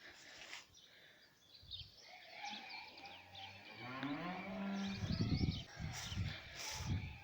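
A cow mooing: one long low call that rises in pitch and holds for a second or so, about three seconds in, followed by a run of low thuds.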